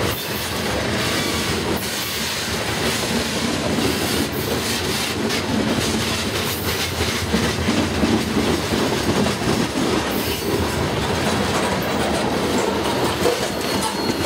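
Freight train of covered hopper cars rolling past close by: a steady rumble of steel wheels on rail, broken by frequent clicks as the wheels cross the rail joints.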